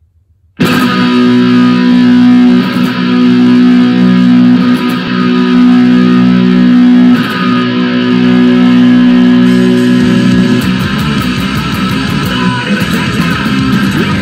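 Electric guitar, a single-cut Les Paul-style, played through an amp. It comes in suddenly about half a second in with chords held and left ringing, then from about ten seconds in switches to fast strumming.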